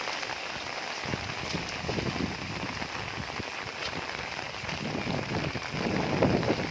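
Heavy rain pouring steadily. A deeper low rumble joins about a second in and swells near the end.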